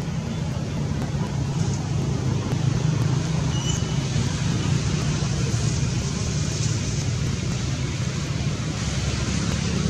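Steady low outdoor rumble with a hiss over it, unbroken throughout, with a faint short high chirp about three and a half seconds in.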